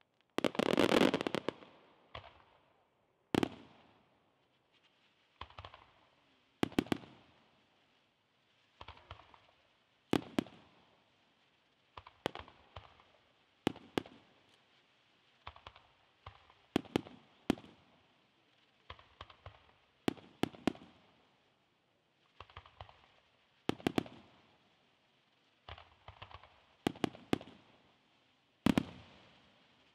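Aerial firework shells bursting in quick succession. Sharp bangs come every second or two, often in twos or threes, each trailing off in an echo. A dense flurry of bursts about half a second in and a single bang near the end are the loudest.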